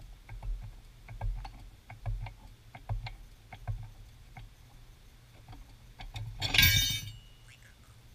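Pittsburgh Automotive 3-ton hydraulic floor jack being pumped, a soft click and knock about every 0.8 seconds. About six and a half seconds in comes a loud metallic clatter as the chain and jack-stand rig gives way and falls.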